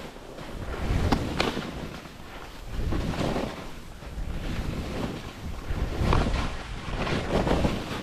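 Skis scraping and hissing over chopped snow in a series of turns, swelling and fading with each turn, with wind rushing over the microphone.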